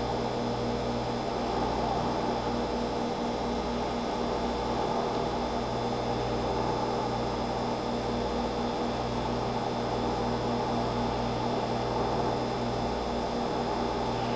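Steady electrical hum with a faint fan-like hiss beneath it.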